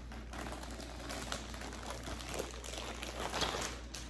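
Packaging crinkling and rustling in the hands in irregular bursts as a package is handled and opened, loudest about three and a half seconds in.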